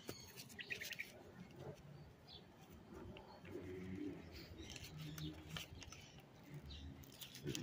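Faint garden birdsong: a dove cooing, a few soft low coos in the middle, with small birds chirping around it.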